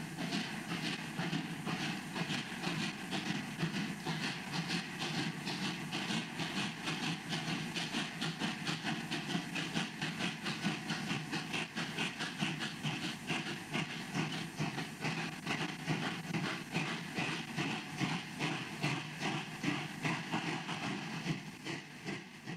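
Steam locomotive working up a grade, its exhaust chuffing in a rapid, steady beat with steam hiss, fading away at the very end.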